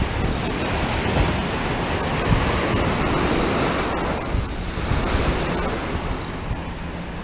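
Ocean surf breaking and washing against the foot of a concrete seawall, the wash swelling in the middle and easing off again, with wind buffeting the microphone.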